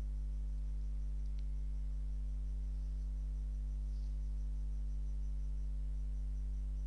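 Steady low electrical mains hum, one low drone with evenly spaced overtones, unchanging throughout, with a faint single click about a second and a half in.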